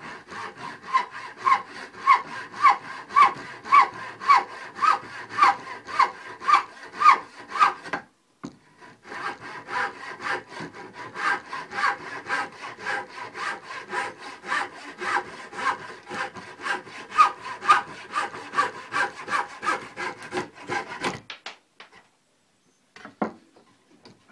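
Hand backsaw cutting through a green-wood blank clamped in a vise, in steady back-and-forth strokes about two a second. The sawing pauses briefly about a third of the way in, resumes, and stops a few seconds before the end as the cut is finished.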